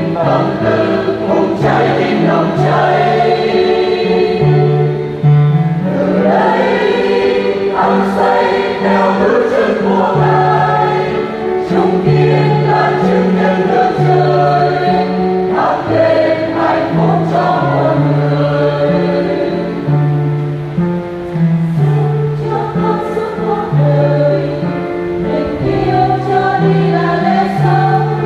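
A church choir singing a Vietnamese Catholic hymn with accompaniment, its bass line stepping from note to note about once a second under the voices.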